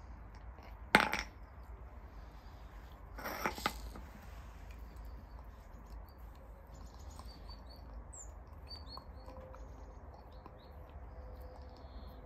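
A dog's bone knocking on stone paving: one sharp knock about a second in, a short clatter a couple of seconds later, then faint ticks as the Norwegian Buhund gnaws it.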